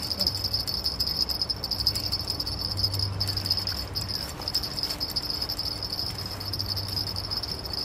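Insects chirring steadily in the riverbank grass, a continuous high pulsing trill, over a low hum.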